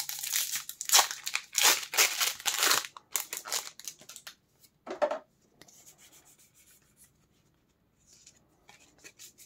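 A foil Pokémon booster pack being opened, with loud crinkling and tearing of the wrapper for the first three to four seconds. Faint rustling of the wrapper and cards follows.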